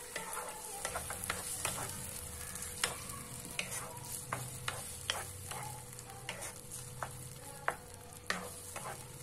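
Wooden spatula stirring a thick tomato and vegetable sauce as it fries in oil in a non-stick kadai: repeated short scrapes and knocks against the pan, irregular at one to two a second, over a steady sizzle.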